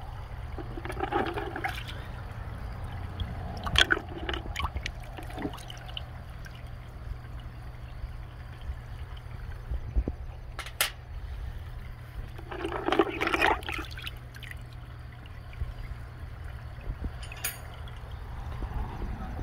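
A hand sloshing in a bucket of degreaser liquid, with splashing and dripping as wet petrified wood slices are lifted out, in three bursts. A few sharp clicks of stone slices being set down come in between.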